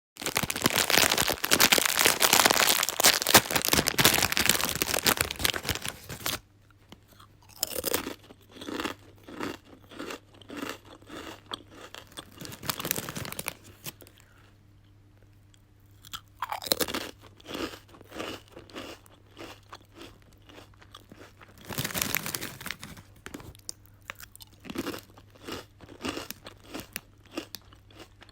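Chips being bitten and chewed close to the microphone: a dense, loud crackle of crunching for about the first six seconds, then separate crunchy bites, each followed by a run of rhythmic chewing. A faint low hum sits underneath after the first six seconds.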